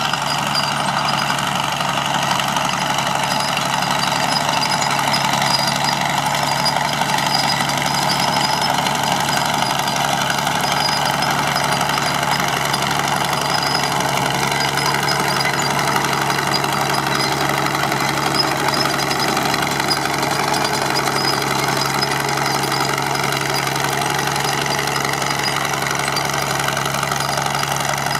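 Fowler Challenger 22 crawler tractor's engine running steadily as the machine tracks across stubble, pulling a disc harrow.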